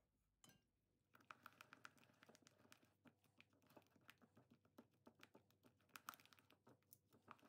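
Faint, rapid, irregular scraping and tapping of a silicone spatula in a bowl as butter and sugar are mixed together, starting about a second in.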